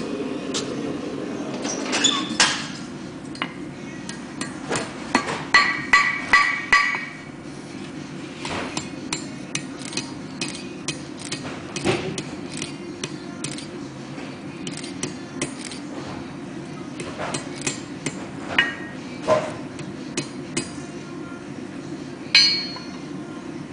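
Blacksmith's hammer striking a glowing steel bar on an anvil: irregular blows, with a quick run of hard strikes a few seconds in that leave the anvil ringing, then lighter, sparser taps and one more hard blow near the end.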